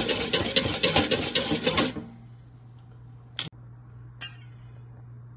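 Wire whisk beating milk in a stainless-steel bowl, rapid strokes clattering against the metal, stopping about two seconds in. Two light knocks follow.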